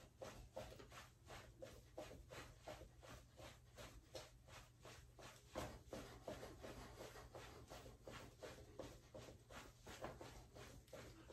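Faint, soft footfalls of a person jogging in place in socks on a wooden floor, about three steps a second, over a steady low hum.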